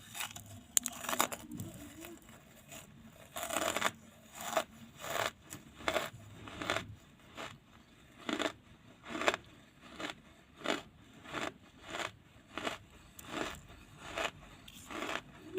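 Wood charcoal crunching as it is chewed, in irregular crunches at first and then a steady rhythm of about three crunches every two seconds.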